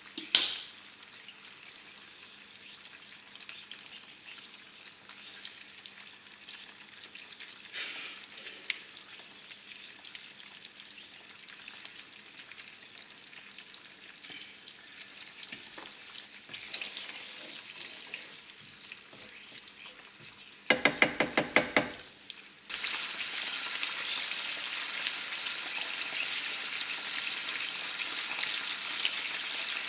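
Passata tomato sauce with olive oil sizzling in a frying pan on a gas hob, with light stirring. There is a sharp knock near the start and a quick run of clicks about two-thirds through, after which the sizzling is louder and steady.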